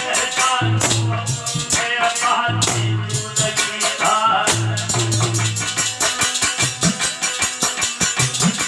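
Aalha folk ballad music: fast jingling percussion and repeated low bass notes, with a singer's wavering phrases in the first half.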